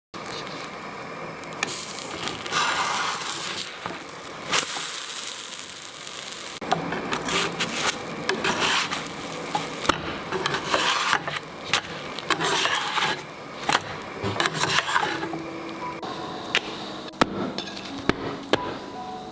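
Kitchen utensils scraping, rubbing and tapping against cookware and dishes in irregular strokes, with sharp clicks scattered throughout.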